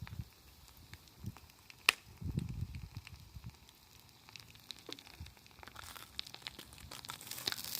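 Wood fire crackling faintly, with one sharp pop about two seconds in and a few low knocks just after. The crackling and hissing grow busier near the end.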